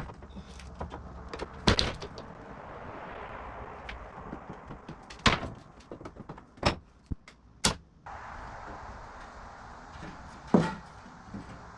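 Wooden ceiling trim and boards being pried loose: sharp knocks and cracks of wood, about five loud ones spread out with smaller clicks between, over a steady hiss.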